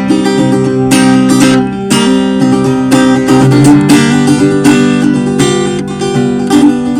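Acoustic guitar strummed in a steady rhythm, the chords ringing between strokes.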